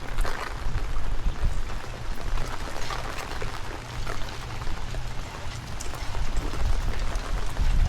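Rain falling steadily with scattered close drop hits, while gusts of wind buffet the microphone in an uneven low rumble.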